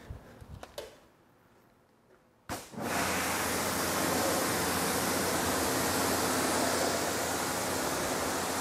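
Water jet from a car-wash spray wand hissing steadily against a car's door panel and window. It starts abruptly about two and a half seconds in, after a near-silent pause, as a rinse over a panel freshly treated with spray sealant.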